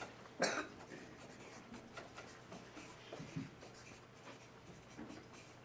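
Marker writing on a paper flip chart: a run of faint, short scratchy strokes, with one louder stroke about half a second in.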